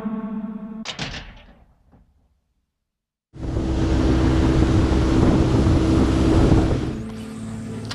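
Music ends about a second in, then silence, then a small aluminium skiff's outboard motor running at speed as the boat passes, a steady hum under loud rushing water and wind noise, cutting down to a quieter hum near the end.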